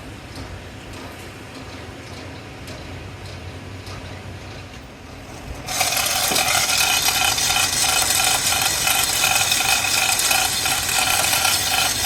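Metalworking machinery in a gear factory: a low steady machine hum with faint ticks, then about six seconds in a much louder, steady, high-pitched hissing whine starts suddenly and keeps going.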